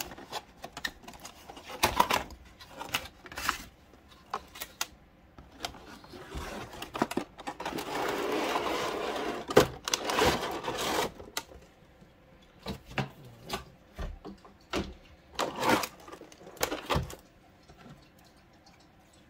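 Cardboard packaging and a clear plastic blister tray being handled while a figure box is unpacked: scattered clicks and knocks, with a longer stretch of plastic crinkling and rustling in the middle.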